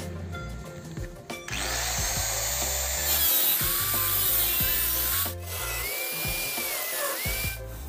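Electric angle grinder grinding the steel floor panel of an auto-rickshaw, in two passes with a short break a little after the middle; its whine dips and rises as the disc bites into the metal. Background music plays underneath.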